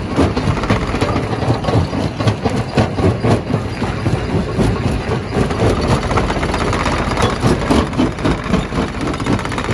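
Stone crusher running: a loud, steady machine rumble with frequent irregular knocks and clatter.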